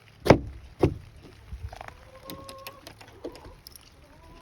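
Two sharp knocks about half a second apart, followed by quieter scattered clicks and a brief thin steady tone.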